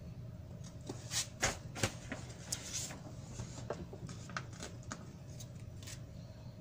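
Glossy magazine pages being handled and turned: a burst of paper rustles and crinkles about a second or two in, then lighter scattered handling noises, over a steady low hum.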